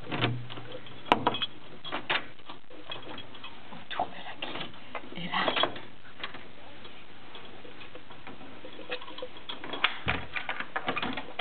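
Clicks and knocks of a door's lock and handle being worked as a hotel room door is unlocked, with a sharp click about a second in and a quick run of clicks about ten seconds in as the door swings open.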